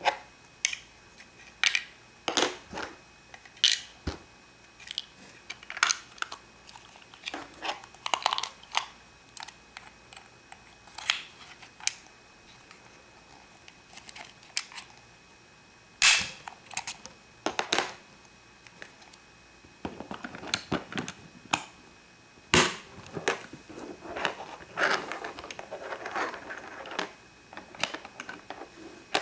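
Small plastic Minnie Mouse Pocket Lock-It toy houses being handled: a scatter of sharp plastic clicks, snaps and knocks as the houses are folded shut, their keys worked and the houses set down, with two louder snaps, one about halfway through and one a few seconds later, and some rubbing and rustling of handling toward the end.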